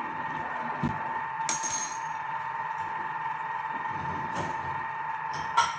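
Clinks and knocks of kitchen items being handled and put away, the loudest a sharp ringing metallic clink about a second and a half in, with smaller knocks near the middle and end. Underneath is a steady whine from a Thermomix motor running at speed 2.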